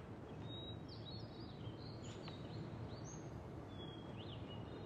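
Faint, scattered short bird chirps over a low, steady outdoor hiss.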